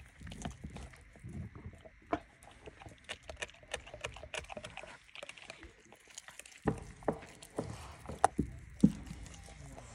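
Dog gnawing on a large bone, with irregular sharp clicks and crunches of teeth on bone. Several louder knocks come in the second half.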